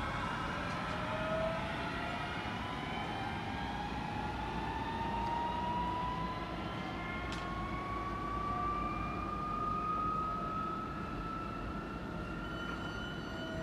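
DB class 423 S-Bahn electric train accelerating, its traction motors giving a whine that rises slowly and steadily in pitch, over a low rumble.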